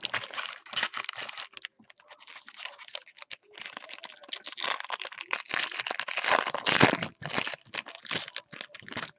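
Crinkling and tearing of a trading-card pack's wrapper as it is ripped open and handled, in irregular crackling bouts with short pauses.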